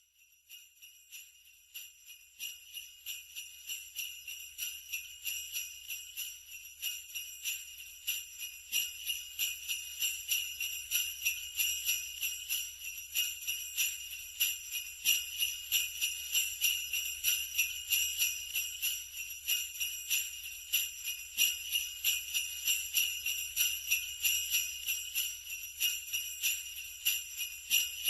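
Sleigh bells shaken in a steady, even rhythm of about three shakes a second, a continuous bright jingle. It fades in over the first several seconds, then holds level.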